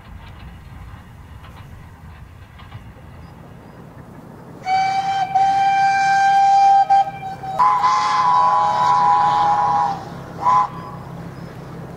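Narrow-gauge steam locomotive whistle sounding over the faint running of the train: one long steady blast starting about four and a half seconds in, then a second, higher blast with two notes together, then a short toot near the end.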